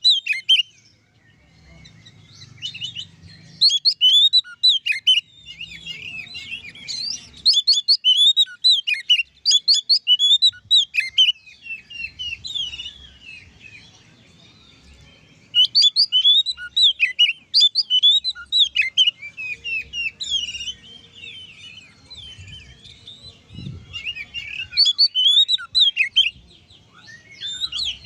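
Oriental magpie-robin (kacer) in full, open song: long, fast runs of varied high whistles and chattering notes. The song comes in three long bouts with short lulls between them.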